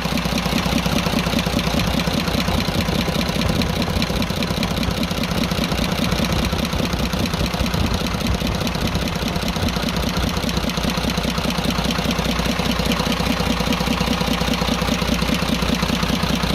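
Cummins 24-valve six-cylinder truck diesel idling with its tappet cover off, with a ticking from the valve gear. The tick comes loudest from the number one cylinder, whose rocker has worked completely loose.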